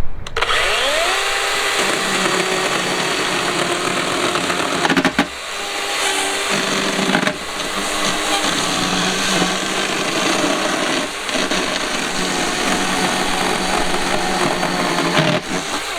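Cordless battery-powered electric chainsaw spinning up with a rising whine and running under load as it cuts wood. The run dips briefly a few times, then stops.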